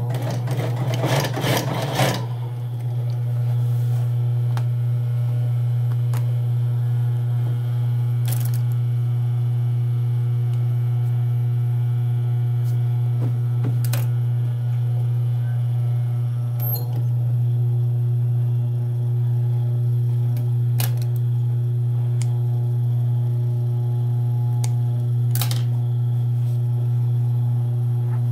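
Industrial sewing machine's motor humming steadily with a low electric hum. It runs a short burst of stitching in the first two seconds, then hums on idle while cloth is handled, with a few faint clicks.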